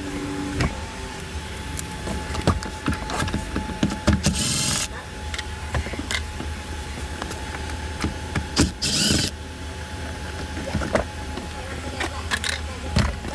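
Cordless drill/driver run in two short bursts, about four seconds in and again about nine seconds in, amid scattered knocks and clicks of tools and plastic interior trim being handled.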